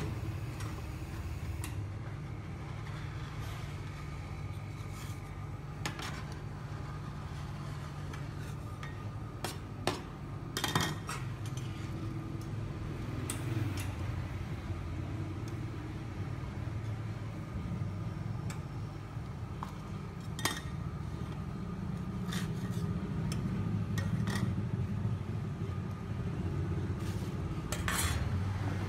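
Metal spatulas scraping and clinking on a steel ice-cream cold plate as rolled ice cream is scraped up, with scattered sharp clicks over a steady low hum.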